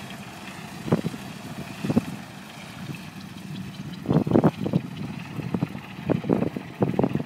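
Antonov An-2 biplane's nine-cylinder radial engine idling on the ground, a steady low drone. Irregular gusts of wind or propeller wash buffet the microphone, loudest about four seconds in and again near the end.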